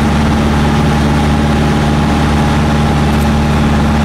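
Piper PA-28 light aircraft's piston engine and propeller in flight, a loud steady drone heard from inside the cabin.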